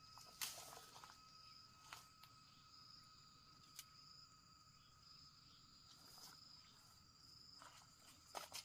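Faint steady insect chirring in two high, even tones, with a few soft clicks and rustles, the loudest about half a second in and near the end.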